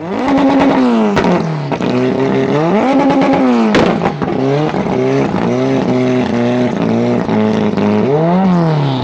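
A performance car engine revving hard, its pitch climbing and dropping again and again. Sharp exhaust pops come through, with one loud bang about four seconds in, the kind of backfire that anti-lag or a rich overrun produces.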